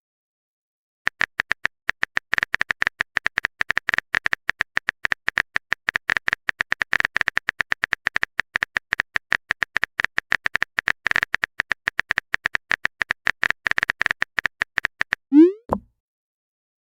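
Rapid clicking of a phone-keyboard typing sound effect, several clicks a second for about fourteen seconds, then a short swooping pop as a message is sent near the end.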